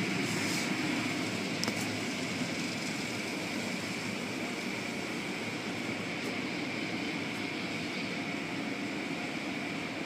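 Automatic car wash running: hanging cloth curtains and water spray working over a car, a steady rushing wash noise with a faint steady high hum through it.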